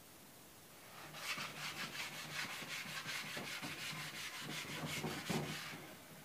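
Sandpaper on a hand sanding block rubbed back and forth over a wooden door, a scratchy hiss in quick strokes of about four a second. It starts about a second in and stops shortly before the end.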